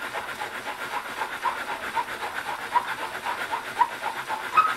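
Edge of a steel cabinet scraper, held vertical, rubbed back and forth on 500-grit abrasive paper over glass, in quick even strokes about four a second. It is the edge being polished flat and square before the burr is turned.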